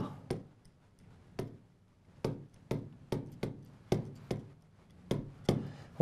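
Stylus tapping and clicking against a touchscreen display as an equation is handwritten: about a dozen short, sharp taps at irregular intervals.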